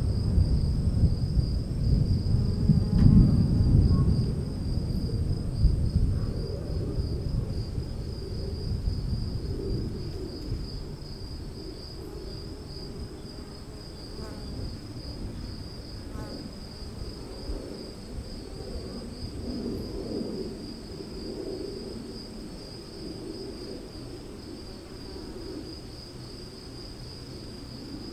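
Low rolling thunder, loudest in the first few seconds and then dying away, over a steady chorus of crickets chirping.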